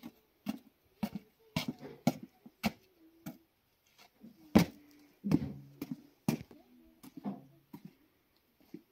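Irregular knocks and clatter, about a dozen strikes; several ring on briefly at a steady pitch, and one loud knock falls about halfway through.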